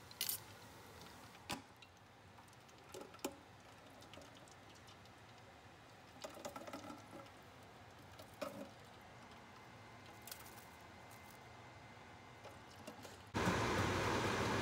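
Hot oil in an electric deep fryer crackling faintly with scattered small pops and clicks. About a second before the end, a much louder steady hiss comes in suddenly.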